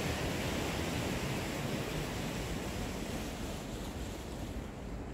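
Sea surf washing onto the shore, stirred up by days of wind and rain, with wind on the microphone; the hiss thins out near the end.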